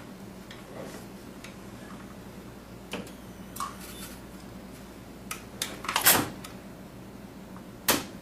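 Sharp clicks and snaps from a capacitor-discharge resistance welder with a parallel-electrode weld head, spot-welding copper motor wires to commutator tangs. The loudest cluster comes about six seconds in, over a steady low hum.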